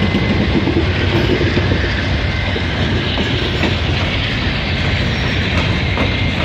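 EMD SD60E diesel locomotive of a freight train rolling past close by, its engine running and its wheels clicking over the rails in a steady loud rumble.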